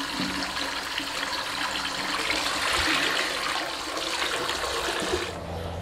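Tap water running and splashing into a pot of cut potatoes and cauliflower as they are rinsed by hand at a sink; the water stops about five seconds in.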